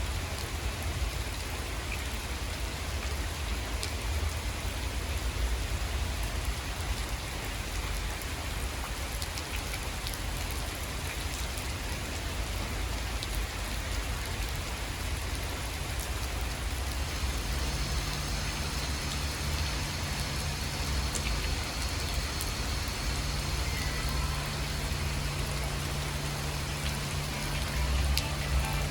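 Steady rain falling, with scattered sharp drop hits; a steady low hum joins about two-thirds of the way through.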